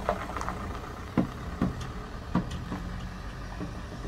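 Luton box van's engine running as it drives off across loose gravel, with a few sharp clicks, the loudest three coming about one, one and a half, and two and a half seconds in.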